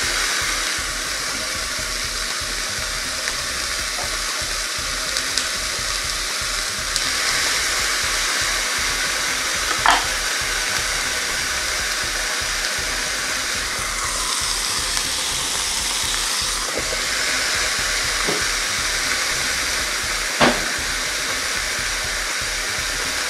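Beef steak sizzling steadily inside a closed electric panini grill press, a continuous hiss of frying meat and steam with a couple of sharp pops, about ten seconds in and near the end.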